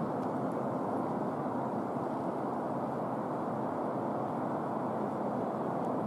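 Steady low background rumble with no distinct events and no duck call.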